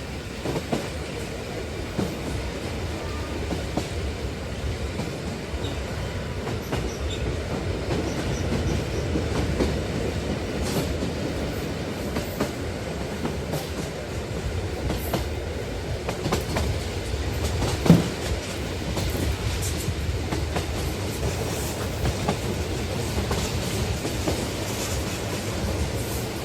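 Model train locomotive running along its track: a steady motor hum and wheel rattle with scattered clicks at the rail joints, and one sharper click about eighteen seconds in.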